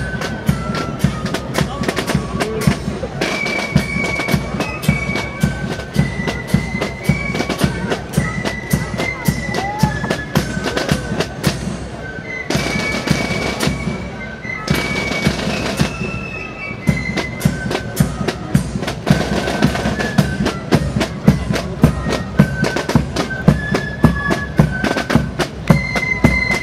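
Background music: a bagpipe tune of held, stepping notes over a continuous drone, with fast drumming throughout.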